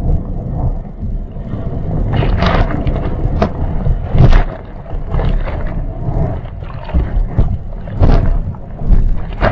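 Rushing whitewater and spray on a board-mounted action camera as a bodyboard rides a breaking wave: a loud, deep rushing noise with repeated sharp splashes of water hitting the camera.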